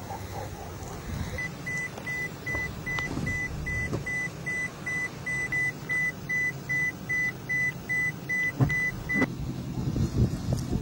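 A steady series of short, high electronic beeps, about three a second, that starts about a second in and stops near the end, over a low outdoor rumble.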